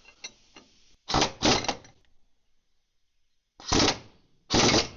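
Four short bursts of mechanical clatter in two pairs, from hand tools at work on a bulldozer's track-tensioner parts.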